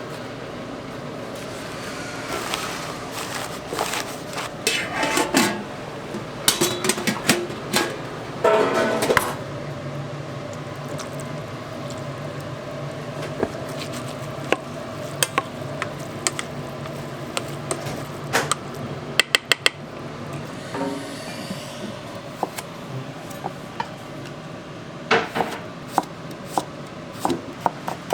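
Dishes and utensils clinking and knocking during food preparation in a restaurant kitchen: scattered sharp taps and clatters, a few quick runs of clicks, over a steady hum.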